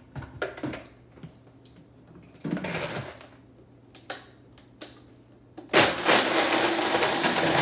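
A few knocks as the blender lid is pressed onto the jar, then near the end the countertop blender runs loud for about two seconds, crushing ice with eggnog, Kahlúa and vodka.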